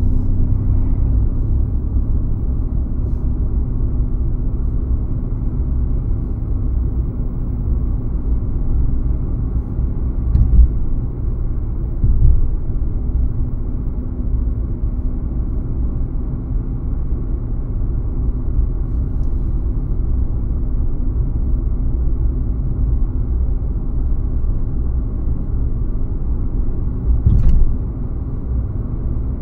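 A car driving steadily: a continuous low rumble of engine and road noise. Short thumps break it three times, about ten, twelve and twenty-seven seconds in.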